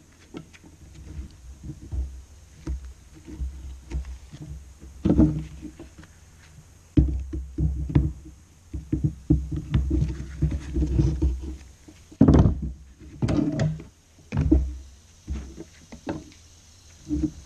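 Hands in work gloves and needle-nose pliers working an old starter rope out through the hole in a cut-off saw's recoil starter cover: irregular rubbing and scraping with scattered knocks and clicks of tool on metal and plastic.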